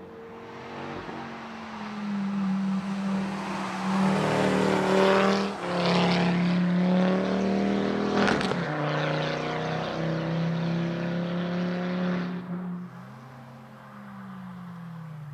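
Ford Focus ST's turbocharged 2.5-litre five-cylinder engine pulling hard as the car approaches and passes, its note holding steady with a brief dip about five and a half seconds in and a sharp crack a little after eight seconds. It then fades, the engine note falling away over the last couple of seconds.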